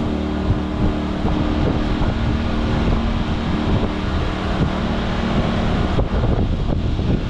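Champion inverter generators running steadily, with wind buffeting the microphone. The engine hum thins out for a moment about six seconds in as the wind noise takes over.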